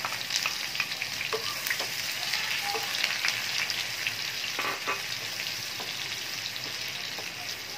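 Sliced onions sizzling and crackling in hot oil in a frying pan, stirred with a wooden spatula that scrapes and knocks against the pan a few times.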